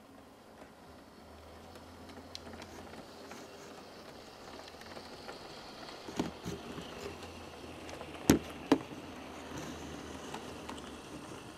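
Bachmann OO gauge model Class 170 diesel unit running on the track: a steady low motor hum and wheel rumble that grows louder as the train comes closer. A few sharp clicks come through, the loudest two about half a second apart, a little past the middle.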